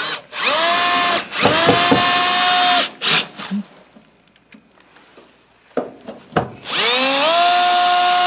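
Cordless drill driving screws into a furnace's sheet-metal panel. Three runs, each a whine that rises as the motor spins up and then holds steady. The first two come back to back in the first few seconds, and the third starts about two-thirds through, after a pause with a few clicks.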